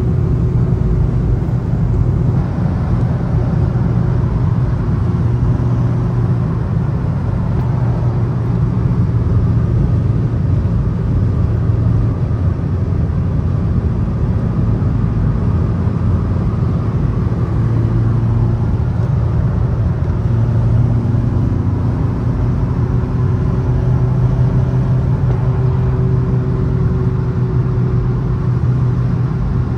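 Steady road and engine noise heard inside a car cruising at highway speed: a constant low drone with no breaks.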